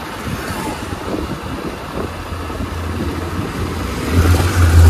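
Motorcycle riding through town traffic: the engine runs under steady wind and road noise, and a low engine hum swells louder near the end.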